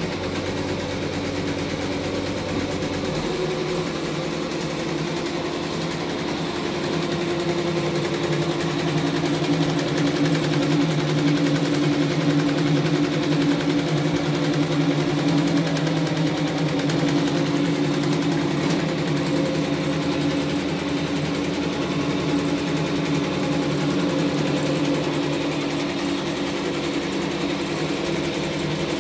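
Two-head, twelve-needle computerized embroidery machine running, its needles stitching lettering in a fast, even rhythm with a steady mechanical hum. It grows a little louder in the middle.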